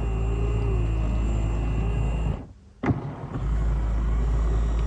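KingPavonini foot massager's air-compression pump running with a steady low hum as it inflates the air bags around the feet. It cuts out for about half a second near the middle, then starts again with a click.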